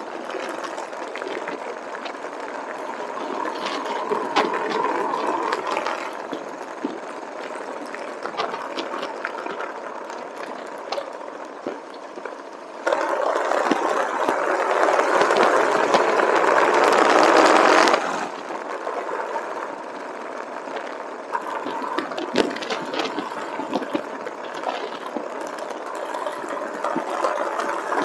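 Motorcycle riding on the road: an even rush of engine and wind noise with scattered small clicks and rattles. About halfway through it jumps louder for roughly five seconds, then drops back abruptly.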